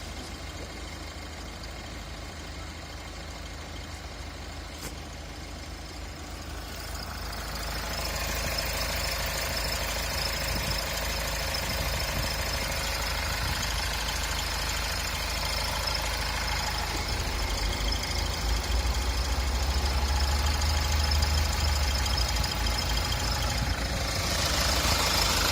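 A motor engine running steadily, with a constant whistle of several high steady tones over a low rumble. It grows louder about seven seconds in and again near the end.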